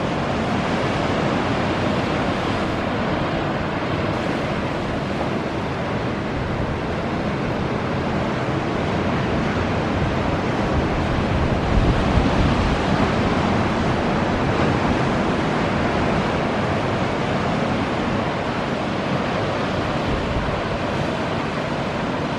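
Sea surf breaking and washing in small waves against a stone harbour pier and beach, with wind buffeting the microphone; a little louder about twelve seconds in.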